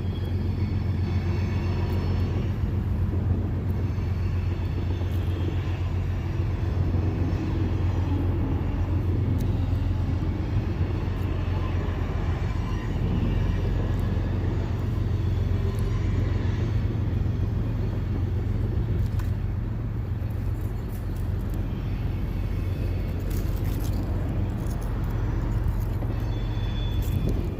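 A steady low rumble with a fainter hiss above it, running evenly without clear events.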